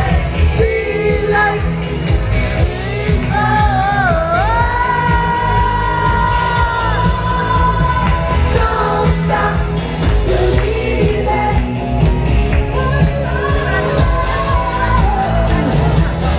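Loud pop dance music with a lead singer over a steady bass beat; the singer holds one long note about four seconds in.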